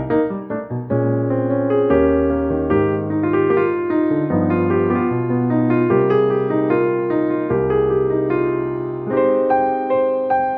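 Background music: piano playing a steady melody over a bass line.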